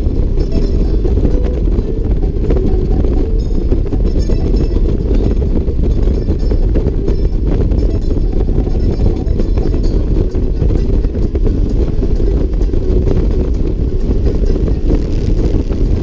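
Motorcycle at highway speed: steady engine noise mixed with wind rushing over the bike-mounted microphone.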